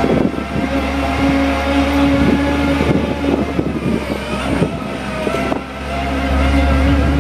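Caterpillar 3126 diesel of a digger derrick truck running steadily while driving the Altec digger unit's hydraulics, with a whine that comes in about half a second in, drops out around three seconds, and returns near the end. Scattered knocks and clanks from the equipment.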